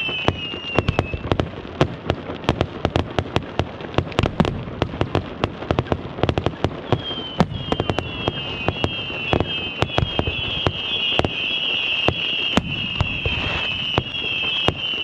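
Fireworks going off in a rapid string of sharp bangs and cracks, several a second. High wavering whistles sound over the bangs at the start and again from about halfway through.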